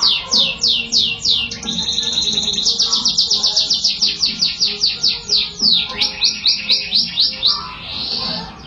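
Domestic canary singing: long runs of rapidly repeated downward-sliding whistled notes, four to five a second, with a faster, denser trill for about a second partway through before the slower sweeps resume.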